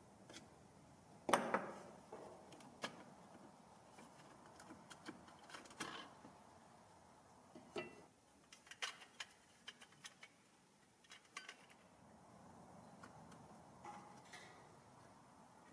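Light metal clicks, taps and scrapes as the rusty tabs of a 1940s Marx P-35 stamped-steel toy plane are pried with pliers and the tin wing is worked loose from the fuselage. One sharper metallic knock comes about a second in.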